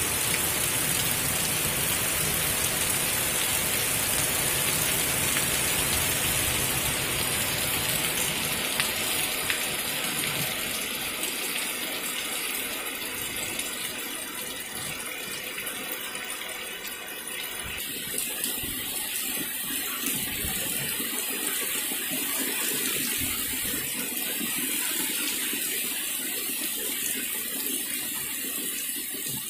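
Heavy rain pouring down steadily, easing off a little over the first fifteen seconds or so.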